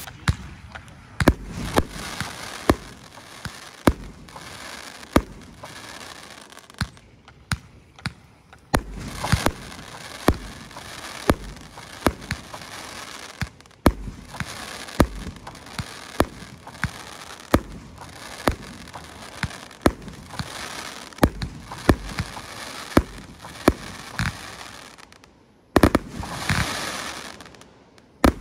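Hardcore Pyro 'Stronzo' 500-gram consumer fireworks cake firing its shots in steady succession: sharp reports about once a second over a continuous hiss and crackle of the effects, with a heavier burst near the end.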